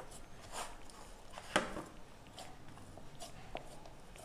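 Hands kneading soft rice flour dough in a bowl: a few faint, irregular squishing and pressing sounds, one louder about a second and a half in.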